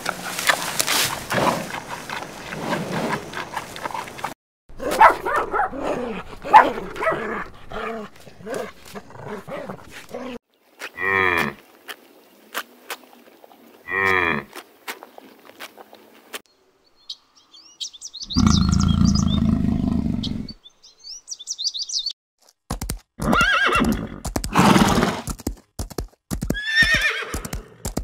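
A series of separate animal calls with short pauses between them: a run of cries, two short calls in the middle, a low call, then several horse whinnies near the end.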